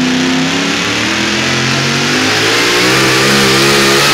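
Supercharged engine of a super modified four-wheel-drive pulling truck revving as it takes up the sled and starts its pull, its pitch climbing slowly. About two and a half seconds in, the engine grows fuller and louder and a high whine rises above it.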